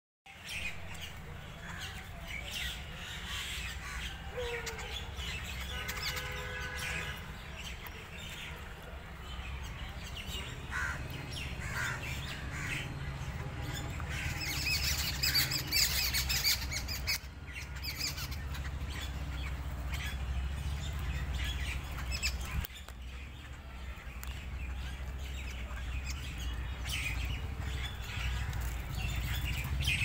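Birds chirping and calling in a tree: many short chirps, busiest about halfway through, over a steady low rumble.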